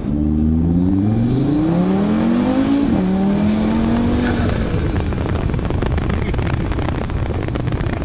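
Audi RS3's turbocharged 2.5-litre five-cylinder, heard through an Integrated Engineering intake, accelerating hard with a rising turbo whistle over the engine note. About three seconds in the pitch drops at an upshift, then climbs again. At about four and a half seconds the throttle closes and the note breaks into the rapid chatter of wastegate flutter.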